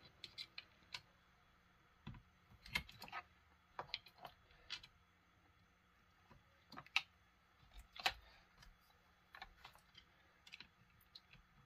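Faint, irregular small metallic clicks and ticks of a hex key working a hard-to-reach screw on a Poulan Pro 255 chainsaw, the tool catching and tapping on the screw head and the saw's housing, with a few sharper clicks.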